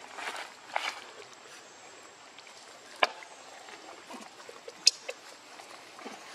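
Irregular rustling of dry leaves and twigs as monkeys shift about on the leaf-littered ground, with a louder patch in the first second and two sharp clicks or snaps, about 3 s and 5 s in.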